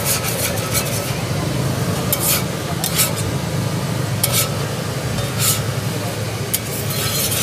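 Metal spatula scraping over a hot crepe griddle in several short, irregularly spaced strokes, over a steady low hum.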